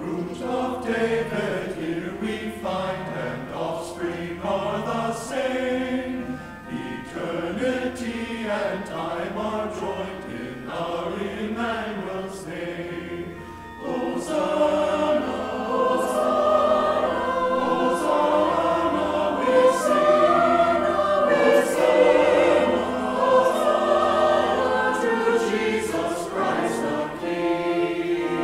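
Church choir singing an anthem with organ accompaniment; the singing grows louder about halfway through.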